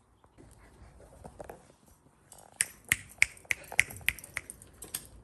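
A quick run of sharp, light clicks or taps, about three a second, starting about halfway through and lasting roughly two and a half seconds.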